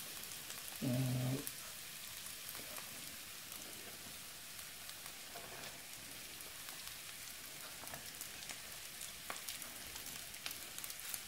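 Faint steady sizzle of onions and leftover chicken curry frying in a pan on low gas. Scattered light ticks and scrapes come through as cooked rice is spooned from a bowl into the pan.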